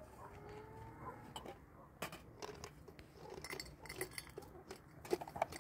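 Scattered faint clicks and clinks of small hard objects being handled, growing more frequent in the second half.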